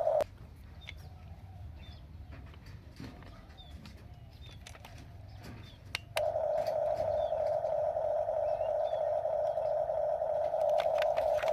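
Birds chirping, with faint dove-like coos and scattered clicks, during a lull; about six seconds in, a steady whine of a small motor starts again and is the loudest sound.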